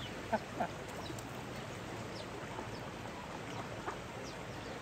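Steady rush of a stream, with a few short, faint bird chirps scattered over it.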